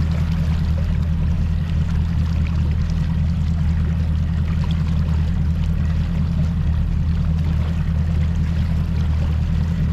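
Mercury Pro XS 200 outboard running at a steady, low drone, with water rushing along the boat's hull.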